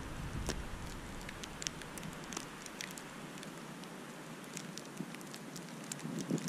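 Wind-driven snowfall: a steady hiss with many scattered sharp ticks of snowflakes striking the camera. Gusts of wind buffet the microphone with a low rumble just after the start and again near the end.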